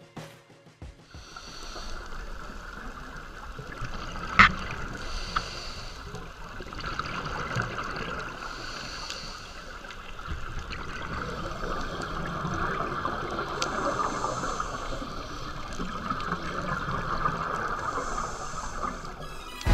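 Underwater sound of a scuba diver breathing through a regulator: a steady hiss and bubbling of exhaled air that swells and fades about every four to five seconds. A single sharp click about four and a half seconds in is the loudest moment.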